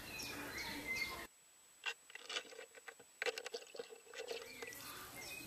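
Birds chirping outdoors, then an abrupt change to muffled underwater sound from a submerged camera: irregular clicks and pops with water noise for about three seconds, before the outdoor ambience returns.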